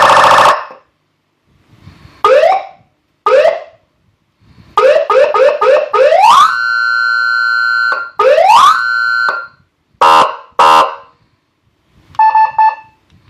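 AS Signal AS-V9-3 electronic siren sounding through its 300-watt speaker in a series of short bursts with gaps between. There are quick rising whoops, a rapid run of short chirps, a rising sweep that holds on a steady tone for a couple of seconds, then short blasts and a quieter beeping tone near the end.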